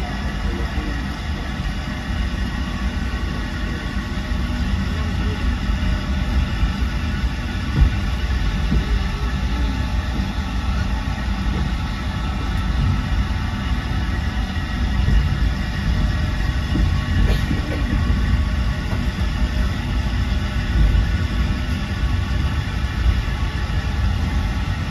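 A passenger train running, heard from inside a carriage with its windows open: a steady low rumble of wheels on the track, with one sharp knock about eight seconds in.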